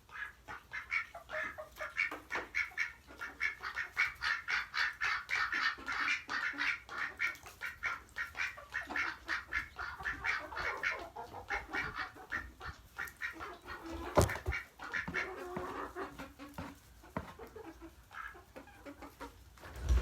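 Domestic ducks quacking in a fast, even series, about three or four calls a second, thinning out after about half way. A sharp knock about two-thirds of the way in.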